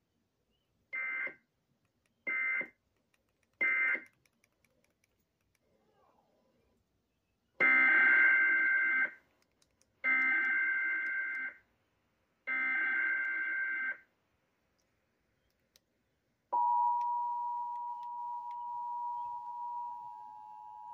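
Emergency Alert System signalling: three short screechy SAME data bursts (the end-of-message code), then three longer SAME header bursts opening the next alert, followed from about two-thirds of the way in by a steady attention tone that continues to the end.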